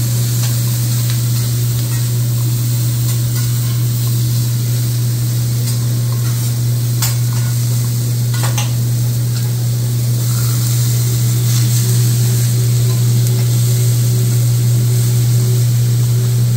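Vegetables sizzling on a hot steel teppanyaki griddle as a chef stirs and tosses them with metal spatulas, with a few sharp scrapes or clicks of the spatulas on the steel. Underneath is a steady low hum, the loudest thing throughout.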